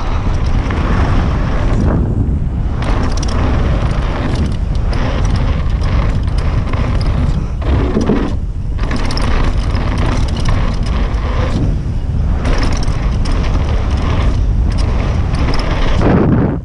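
Mountain bike ridden fast downhill on a packed-dirt trail, heard from a camera on the rider: a steady rush of wind on the microphone over the rumble and rattle of the tyres and bike on the bumpy dirt.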